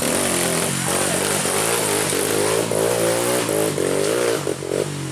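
Dirt bike engine revving, its pitch rising and falling repeatedly as the throttle is worked.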